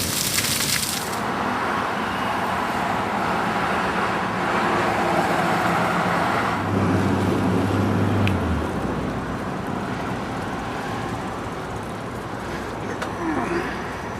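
Fountain water splashing for about the first second, then a sudden change to steady road traffic. A vehicle passes about halfway through with a low engine hum.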